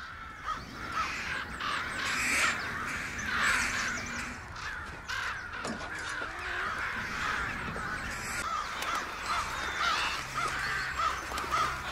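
A large flock of crows cawing, many short harsh calls overlapping densely and without a break.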